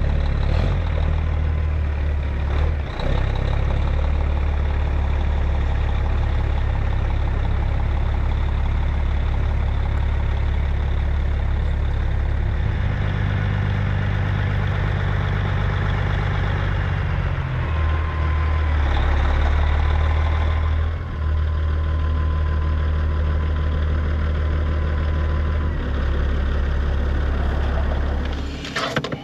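Vehicle engine idling: a steady low drone that shifts in pitch a few times, heard from inside a stationary pickup's cab.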